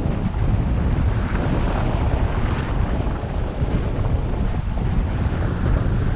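Steady airflow rushing and buffeting over the microphone of a wing-mounted camera on a hang glider in soaring flight.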